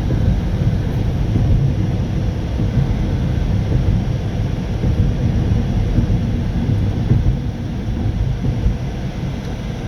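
Steady low rumble of road and wind noise from a car driving at speed.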